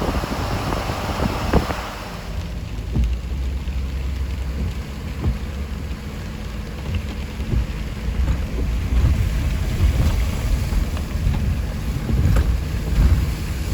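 Vehicle engine droning steadily with low road rumble. For the first two seconds a louder rushing noise lies over it, then it drops away.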